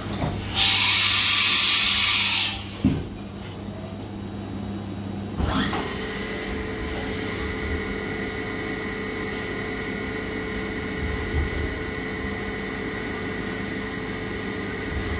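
Mikron VCE 750 vertical machining centre running a CNC program. A loud hiss lasts about two seconds near the start, and about five seconds in the spindle spins up, rising in pitch, then runs with a steady whine over the machine's hum.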